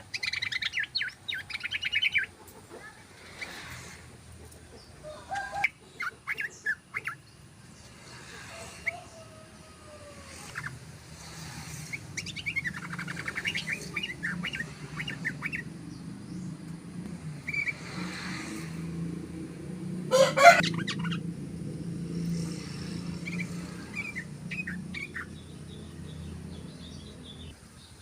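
Yellow-vented bulbul (trucukan) singing in short bursts of fast chattering notes with pauses between them; the loudest burst comes about two-thirds of the way in. A steady low hum sits underneath in the second half.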